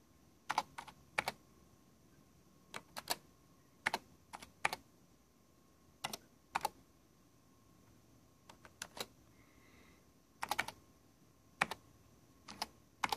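Keys clicking on a Tandy Model 102 portable computer's keyboard as a command is typed one character at a time: irregular clusters of key presses with short pauses between them.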